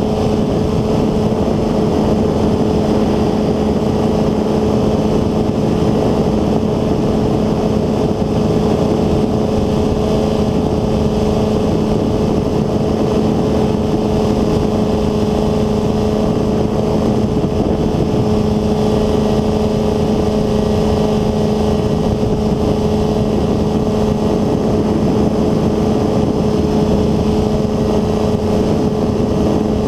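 North Wing Maverick 2 ultralight trike's engine and pusher propeller running in flight at a steady throttle, a constant drone that holds one pitch throughout.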